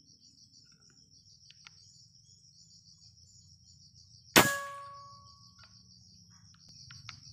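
A single shot from a Jawara Mouser OD32 PCP air rifle about four seconds in: a sharp crack with a short metallic ring after it, which the shooter takes for a hit. Insects trill steadily throughout, in a fast pulsing rhythm.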